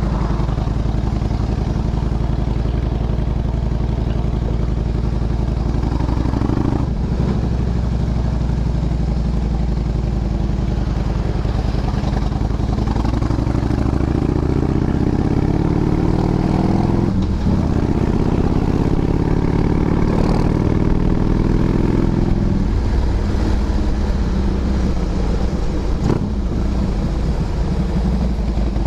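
Motorcycle engine running under way on an uphill climb, the revs rising steadily from about ten seconds in and falling back after about twenty-two seconds, with brief dips where the throttle is eased or a gear changes.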